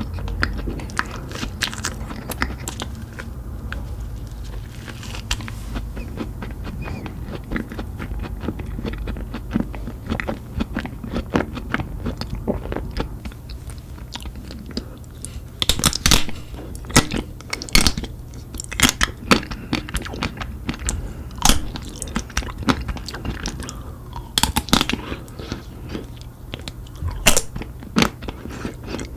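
A person eating ice cream close to the microphone: bites and chewing with crisp crunches, the crunches sharper and louder in the second half.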